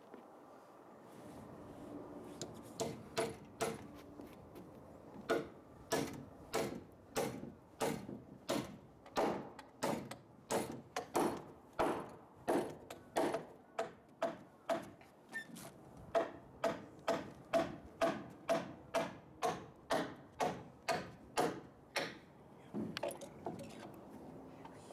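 Hammer driving nails into wooden roof rafters: steady strikes, nearly two a second, each with a short ringing tone, pausing briefly a couple of times.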